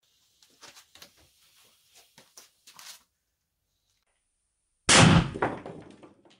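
Faint fizzing crackle of a lit firecracker fuse, then after a short pause a single sharp, loud bang as the firecracker-powered paper cannon fires. The bang is followed by a brief clatter as the shell smashes into a wall of small blocks.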